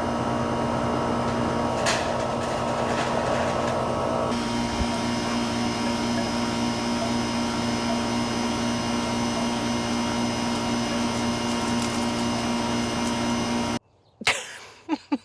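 A steady motor drone with a fixed hum, like a vacuum or small power tool, cutting off abruptly near the end, followed by a couple of short sharp sounds.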